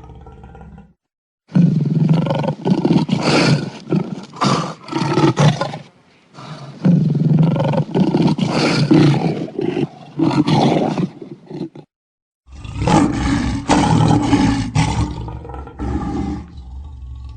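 Lion roaring in three loud bouts of about four to five seconds each, made of rough, repeated calls, with a short silence between the bouts.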